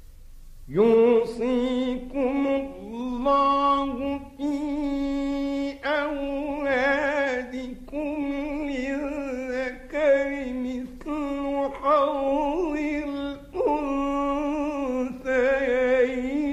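A male Qur'an reciter chanting in long, drawn-out melodic phrases, holding notes with a wavering, ornamented pitch. The voice starts under a second in and runs as several phrases with short pauses for breath between them.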